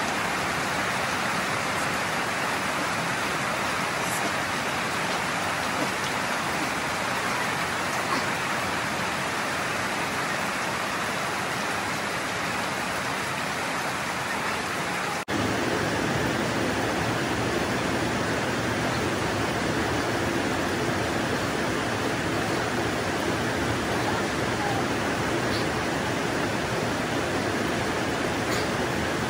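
Steady heavy rain falling as a constant hiss. About halfway through it cuts abruptly to a fuller, deeper rush of rain.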